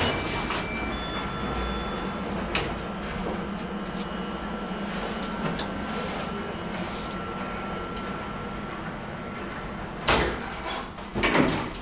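Star Lift machine-room-less traction lift car travelling up: a steady hum and rumble with a thin high whine over it. Two short knocks come near the end, as the car nears the landing.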